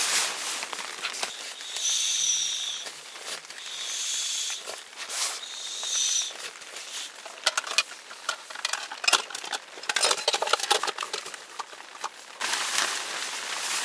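Camping gear being packed by hand: the rustle of a nylon sleeping bag, then air hissing out of a sleeping mat's valve in three short spurts as the mat is pressed and rolled. After that comes a stretch of dense crinkling and crackling from stuff sacks and a plastic bag.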